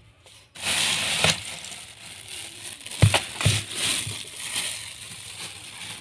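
A packet of dry fruits rustling and crinkling as it is handled, starting suddenly about half a second in, with two dull knocks about three seconds in.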